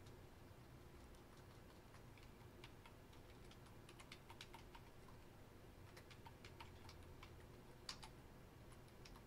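Faint typing on a computer keyboard: scattered, irregular key clicks over a steady low hum.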